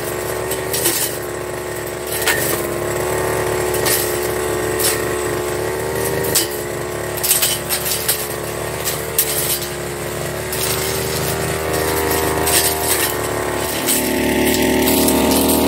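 Firman backpack brush cutter engine running steadily under load while its blade cuts through undergrowth and saplings, with frequent sharp ticks and cracks of the blade striking stems and twigs. Near the end the engine is louder and closer.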